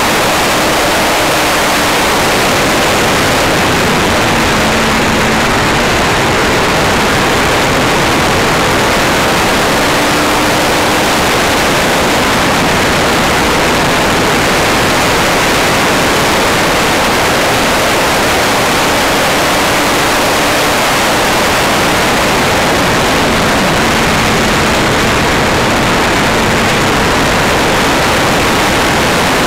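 Steady wind noise rushing over the microphone of a camera mounted on a moving Yamaha YZF-R1 sportbike, with a faint engine note showing through now and then.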